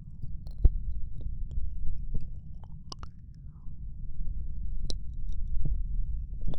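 Close-miked ASMR mouth sounds: scattered soft wet clicks and smacks over a steady low breathy rumble, with a few louder clicks about a second, three seconds and five seconds in.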